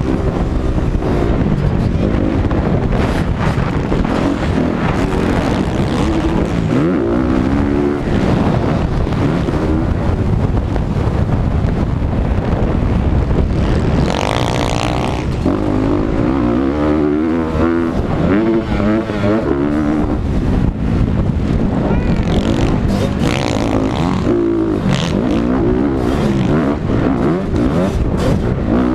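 Motocross dirt bike engines racing, revving up and down again and again as the riders shift and throttle through the track.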